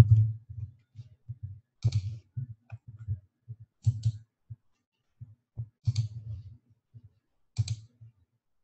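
Clicking and tapping at a computer, with a short cluster of sharp clicks and dull knocks about every two seconds. The loudest cluster comes right at the start.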